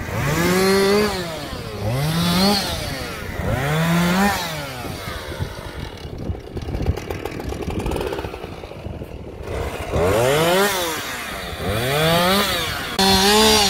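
Chainsaw revving up and back down again and again, every second or two, with a lower, quieter stretch in the middle, while cutting up a fallen tree trunk.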